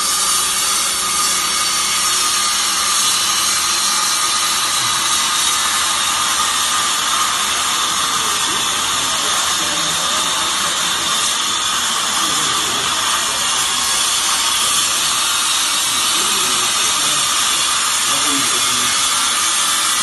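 Fiber baler's hydraulic power unit running steadily, a constant motor-and-pump whine with a high tone over a hiss, while the bale is held compressed for tying.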